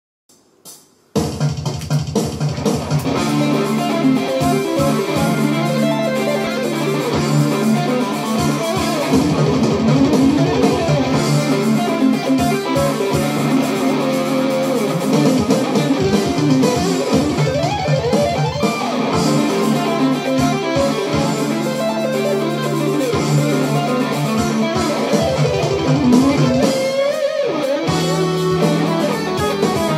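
Electric guitar played through a Hughes & Kettner amplifier, running fast lead lines over sustained low notes; it comes in about a second in after a brief near silence.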